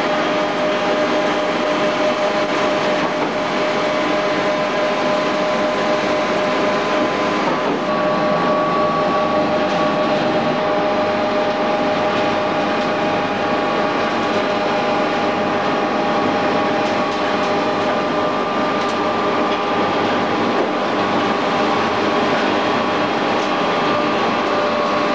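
Empty-fruit-bunch screw press and its drive motor running steadily, a continuous loud mechanical noise carrying several steady whining tones, which shift slightly about eight seconds in.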